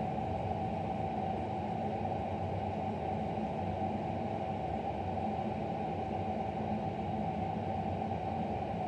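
Steady background hum and hiss that holds a constant level, with no distinct events.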